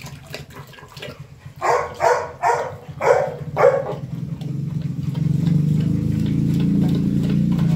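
Dog barking four times in quick succession, then a steady low hum that grows louder over the last few seconds.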